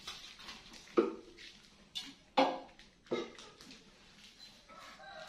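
Stacked heavy plates and a vase knocking and clinking as they are handled: four sharp knocks, the loudest about a second in and just before the middle, each ringing briefly.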